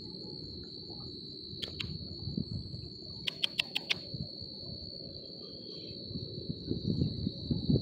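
Crickets chirring in a steady, continuous high trill. A handful of sharp clicks come near the middle, and low rustling noise grows near the end.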